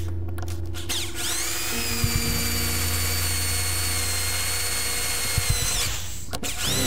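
Electric drill with a 5/32 bit boring into a soft aluminum axe wedge: the motor spins up about a second in, runs at a steady whine while cutting, winds down near the end, then starts up again.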